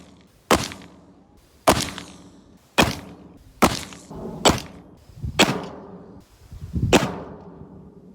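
A run of seven sharp gunshot reports, roughly one a second and somewhat irregular, each followed by a short echoing tail.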